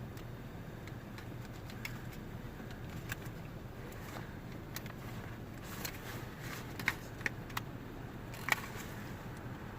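Flathead screwdriver prying a plastic window-switch panel out of a car door trim: small scattered clicks and scrapes, with a handful of sharper plastic snaps from about six seconds in as its clips let go, over a steady low hum.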